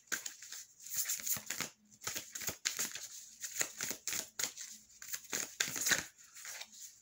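A deck of tarot cards being shuffled by hand: an irregular run of quick, crisp card flicks and rustles, several a second.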